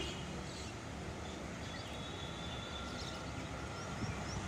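WAG-7 electric freight locomotive approaching with its train, a steady running rumble of the locomotive and its wheels on the rails.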